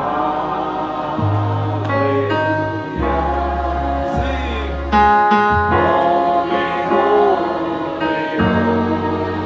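Gospel praise music: a choir singing with instrumental accompaniment, long low bass notes changing every second or two underneath.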